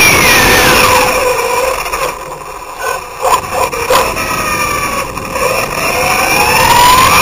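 Onboard an OFNA radio-controlled buggy: the motor's whine falls in pitch as the car slows over the first two seconds, drops away with a few sharp knocks in the middle, then rises again as the car accelerates near the end, over the rush of tyres and wind.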